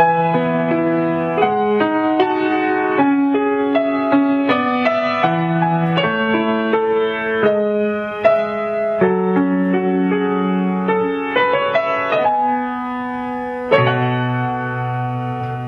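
Solo piano playing a slow melody over chords, starting suddenly out of silence, with a new low chord struck near the end.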